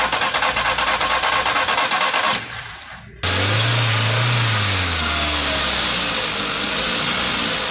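Volkswagen Vento petrol engine being cranked by the starter, a short pause, then catching about three seconds in, flaring in revs and settling to an even idle. It runs without a misfire now that a jammed fuel injector has been dealt with.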